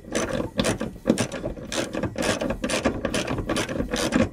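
Socket ratchet on extensions clicking in quick repeated strokes, about four clicks a second, as it tightens the battery hold-down bracket's 13mm bolt.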